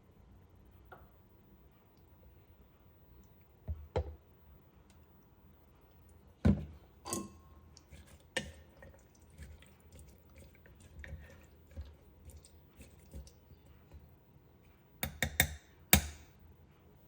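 Scattered sharp clicks and knocks from objects being handled: two close together about four seconds in, a louder knock partway through followed by a few lighter ones, and a quick cluster of several near the end.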